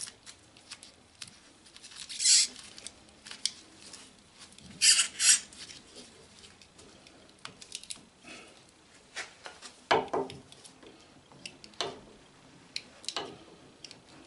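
Gloved hands pulling and rubbing stringy epoxy-resin shavings out of a bowl on a stopped lathe: irregular scratchy rustles and scrapes, with a few louder bursts.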